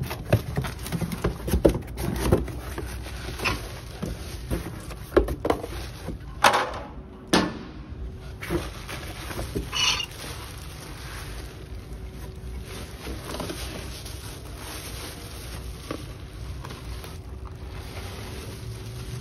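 A cardboard box being opened and handled: a run of knocks, scrapes and tearing in the first several seconds, then softer rustling of bubble wrap as the contents are pulled out.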